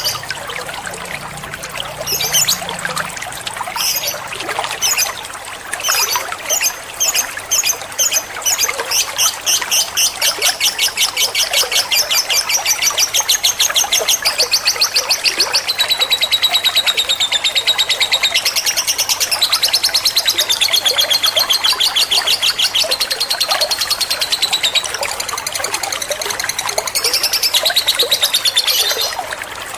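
Lovebird singing its long chattering trill: spaced high chirps, then from about ten seconds in a long, fast run of evenly repeated notes that lasts until near the end.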